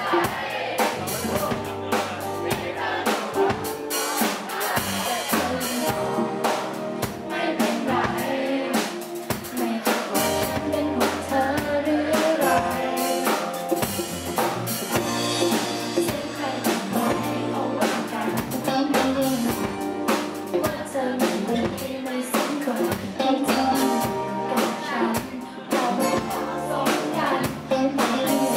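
Live band: a woman singing a pop song into a microphone over acoustic guitar and a drum kit played with sticks.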